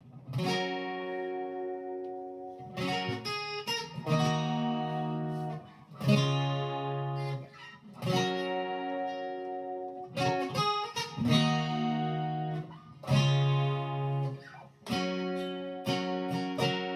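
Instrumental song intro on guitar: full chords strummed and left to ring, a new chord struck about every two seconds.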